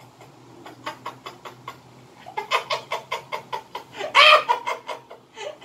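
A man laughing hard and helplessly in fast, breathy 'ha-ha-ha' pulses, about five a second, breaking into a louder, drawn-out laugh about four seconds in.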